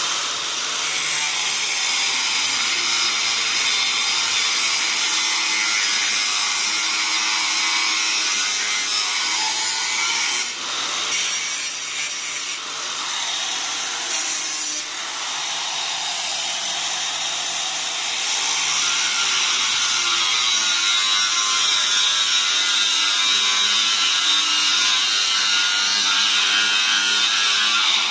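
Steel drill bit being ground on a powered drill-bit sharpener: a steady, harsh grinding hiss that dips briefly a couple of times as the bit is worked.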